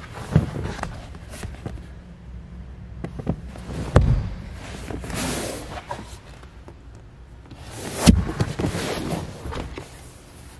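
A few knocks and thumps from hinged under-seat storage lids on a pontoon boat's vinyl couches being opened and handled, the loudest about four and about eight seconds in, with a soft rubbing swish in between.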